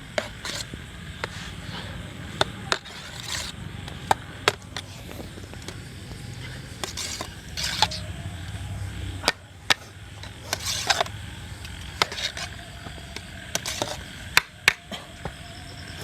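Metal utensils knocking and clinking against a cooking pot, irregular sharp strikes every second or so, as cooked rice is scooped and layered into the biryani pot. A low steady rumble runs underneath.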